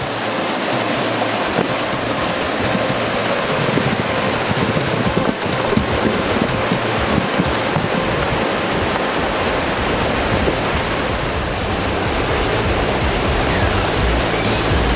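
Mountain stream rushing over rocky cascades and small falls: steady white-water noise, with a deeper rumble growing near the end.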